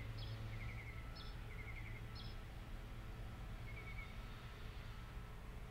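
Small birds chirping, with short trills and high single notes repeating about once a second and thinning out later. A low hum fades out about two seconds in.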